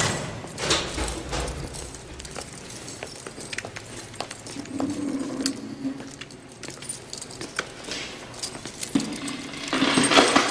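Metal jingling and clinking with scattered knocks and steps, and a louder rustling rush near the end.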